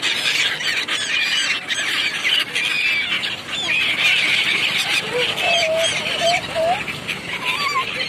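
A large flock of gulls calling, a dense chorus of many short, overlapping high cries, with a few lower, wavering calls in the second half.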